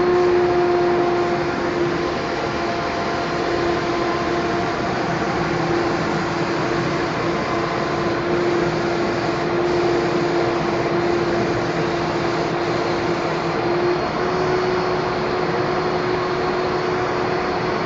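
Spray-gun air supply machine running steadily: a constant motor hum under a rush of air, the hum stepping slightly in pitch about fourteen seconds in.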